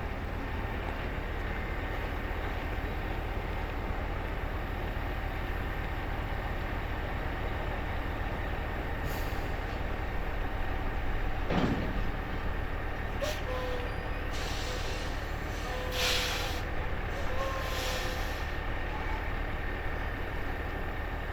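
Steady low engine rumble, typical of a boat motoring, with a few brief clicks and faint short tones around the middle.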